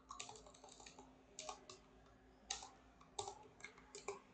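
Computer keyboard keys clicking faintly at an irregular pace as code is typed.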